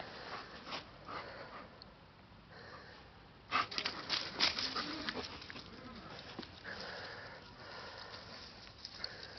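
A German shepherd sniffing and panting. A louder run of short, sharp sounds comes about three and a half seconds in.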